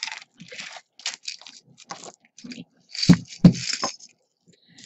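Costume jewelry (beaded necklaces, cords and a chunky metal link chain) being taken out and set down on a cloth-covered table: a run of rustles and small clinks, with two heavier thumps a little after three seconds in.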